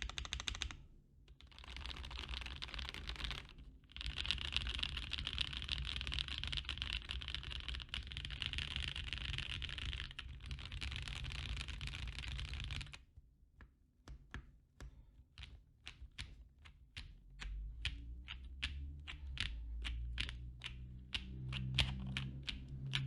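Typing on a custom 60% mechanical keyboard with NK Cream linear switches broken in by 300k actuations, on an FR4 half-plate with GMK keycaps. The typing is fast and continuous with two short pauses, then about halfway through it turns into separate keystrokes, a few a second.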